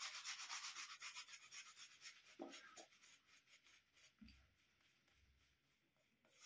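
Shaving brush working up lather from a hard shaving soap: quick rhythmic brushing strokes, several a second, that fade away about halfway through, followed by a couple of soft low bumps.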